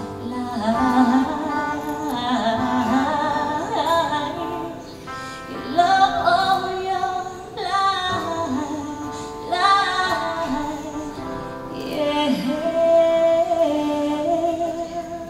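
A woman singing a slow song live into a microphone, backed by a small band with acoustic guitar. She holds one long note near the end.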